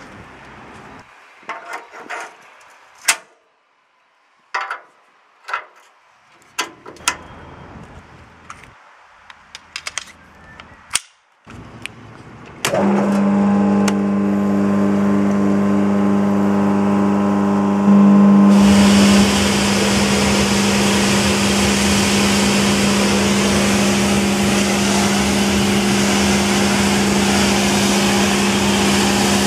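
Scattered clicks and knocks, then a Britclean Goldstar hot water pressure washer starts up about 13 seconds in: its 240-volt, 1450 rpm electric motor and triplex plunger pump run with a steady hum. About five seconds later the trigger is opened and high-pressure hot water jets from the lance with a loud, even hiss over the pump's hum.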